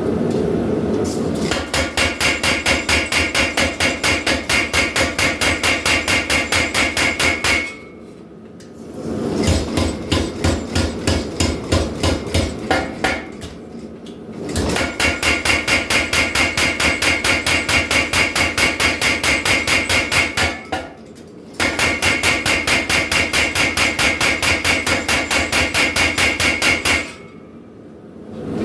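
Power hammer pounding a hot steel knife blank in rapid, evenly spaced blows with a metallic ring. The blows come in four runs, broken by short pauses where only a quieter hum remains.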